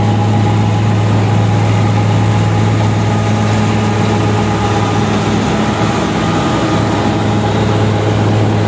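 New Holland Dabang tractor driving a Salman Sarwar wheat-straw chopper under load: the chopper picks up stubble and blows the chopped straw out through its delivery pipe. The engine and chopper make a loud, steady drone with a strong low hum and a few steady higher tones.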